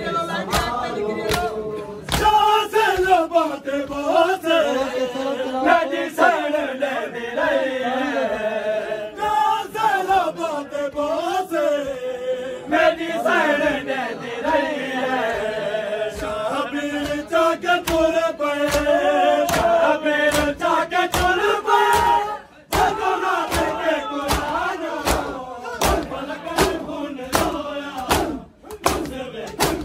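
A group of men chant a Saraiki noha, a Muharram lament, in unison, over a steady beat of sharp matam strikes, the mourners beating their chests. There is a brief break about three-quarters through, after which the strikes come faster.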